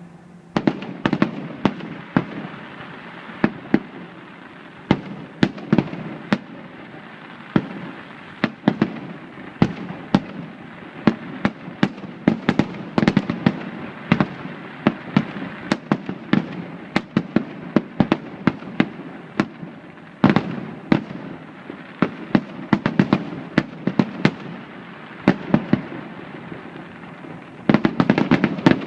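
Fireworks finale: a dense, continuous barrage of bangs, several a second, over a constant rumbling crackle, growing thicker near the end.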